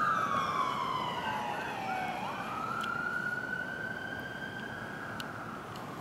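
Police car siren wailing: its pitch slides slowly down, sweeps back up and holds, growing steadily fainter.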